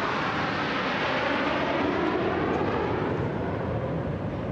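Jet noise of a low formation flypast, a C-17 Globemaster transport with two Su-30 MKI fighters, passing overhead. It is a steady jet sound that swells slightly midway and eases toward the end, with a slowly shifting tone.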